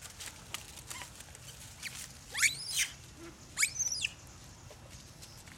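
Two high-pitched squeals from a young long-tailed macaque during a scuffle with another, each rising then falling in pitch, about a second apart midway through. Light rustling of dry leaves underfoot.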